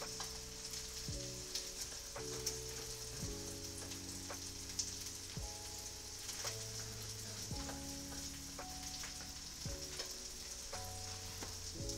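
Salmon fillets sizzling and crackling steadily in a frying pan, with soft background music chords underneath.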